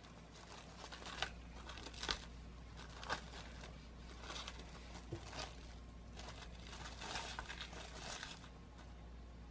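Plastic cling film crinkling as hands press it down over a glass bowl of tapioca pearls in syrup: a string of irregular faint crackles, the sharpest in the first three seconds.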